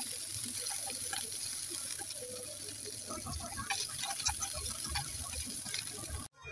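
Green beans and pepper strips sizzling in a nonstick frying pan while being stirred with a spatula, with light scrapes and taps of the spatula against the pan. The sizzle cuts off suddenly near the end.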